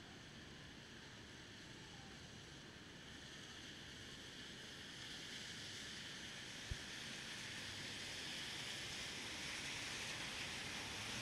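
Steady hiss of rain on a city street, swelling slowly louder from about halfway through. One sharp click about six and a half seconds in.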